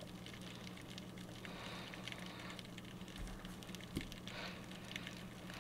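Underwater crackling picked up by a submerged GoPro: many faint, quick clicks over a low steady hum, with a few slightly louder ticks near the end.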